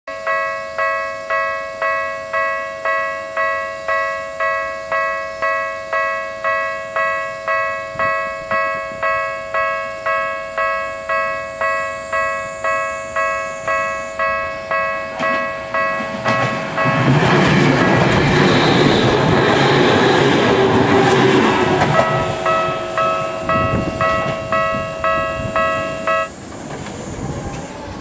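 Level-crossing warning bell ringing steadily, about two strikes a second. A Tokyu 7000 series electric train runs through the crossing from about 16 to 22 seconds in, loud over the bell. After the train has passed, the bell's tone changes and it stops abruptly about 26 seconds in.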